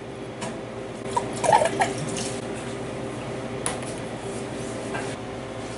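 Glassware and a metal pan being handled on a steel counter: a quick run of clinks and light knocks about a second in and a single sharp clink later, over a faint steady hum.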